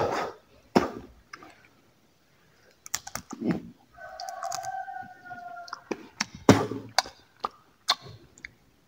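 Dry fruit being cracked and chewed: a string of sharp clicks and crunches, with a steady whistle-like tone lasting about two seconds midway.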